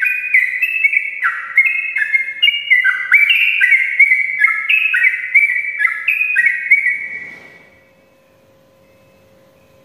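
Yellow-vented bulbul singing a long, fast run of short notes that jump up and down in pitch, without a break, in the rapid 'ropel' style. The song stops about seven seconds in, leaving a faint steady hum.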